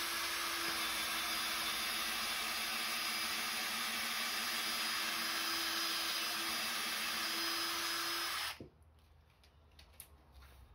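Makita cordless drill running steadily at constant speed, boring a pilot hole deeper into a timber floor plate. It stops abruptly about eight and a half seconds in.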